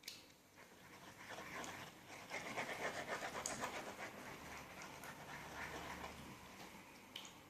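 Glue slime being stirred with a pen in borax water: a faint, quick run of wet squelching and slapping strokes that swells in the middle and dies away, with a couple of light clicks near the end.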